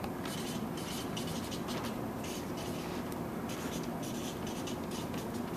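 Marker pen scratching across flip chart paper in a run of short, irregular writing strokes.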